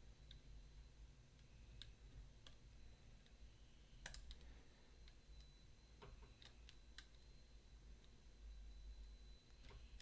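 Faint, scattered metallic clicks of a lock pick working inside a Mottura CP6 dimple lock, about a dozen light ticks spread unevenly, the strongest about four seconds in. The plug is caught on its trap pins and the pick is trying to free it.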